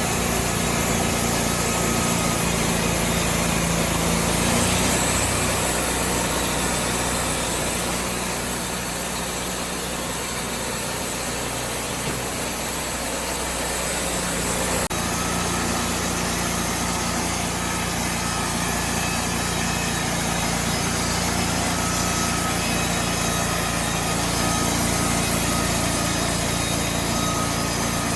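Wood-Mizer band sawmill running, its engine going steadily while the blade saws through a log. The engine note changes about five seconds in and picks back up about halfway through.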